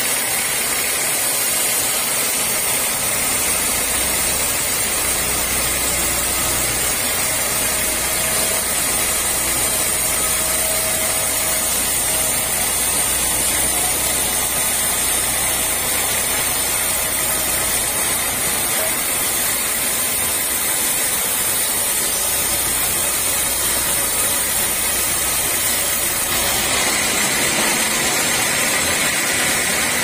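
Band sawmill running steadily, its blade sawing through a large teak log: a continuous high hiss over a low machine hum. The hiss gets a little louder and brighter near the end.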